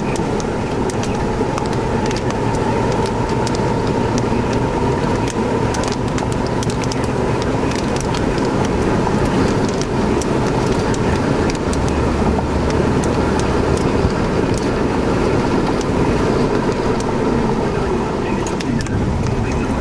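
Steady road and engine noise of a car driving, heard from inside the cabin. Many small, scattered ticks sound over it.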